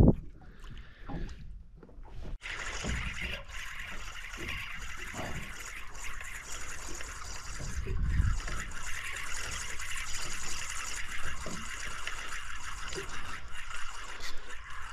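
Water lapping and trickling against the side of a small drifting boat, as a steady hiss with a few low thuds.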